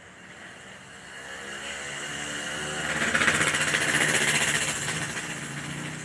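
A motor vehicle passing: its engine swells to a peak about three to four seconds in and then fades.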